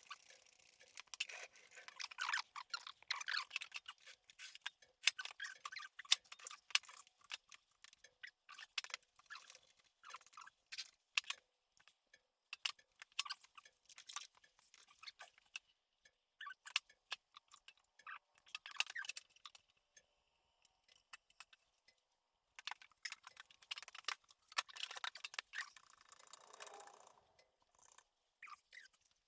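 Rapid, irregular clicking and clinking of small metal parts and hand tools during work on a 10R80 automatic transmission, with a few brief pauses.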